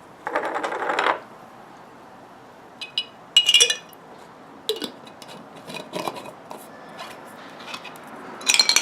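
Copper pipe fittings clinking against a glass jar as they go into a vinegar-and-salt cleaning solution: a short rustle at the start, a few separate sharp clinks, then a louder run of rattling clinks near the end.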